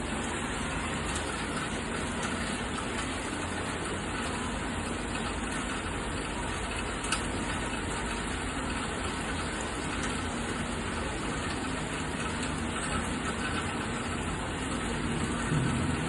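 Steady rain falling, an even continuous hiss, with a faint low hum underneath and one brief tick about seven seconds in.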